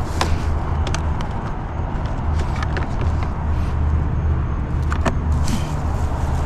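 Motor vehicle driving: a steady low rumble of engine and road noise, with a few light clicks and rattles over it.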